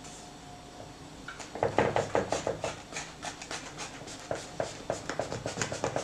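Knife blade drawn through a stack of raw, buttered phyllo (yufka) sheets, making a run of small, irregular crackling ticks as the layers are cut. It starts about a second and a half in.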